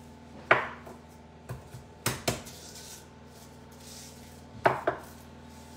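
Knife knocking on a wooden cutting board as garlic is cut: a handful of sharp, irregularly spaced knocks, the loudest about half a second in and a close pair near the end.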